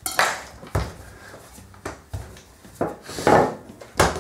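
Wooden rolling pin worked over a sheet of laminated dough on a stainless steel worktop: several short rubbing strokes and knocks, with a longer rub a little after three seconds and a sharp knock near the end.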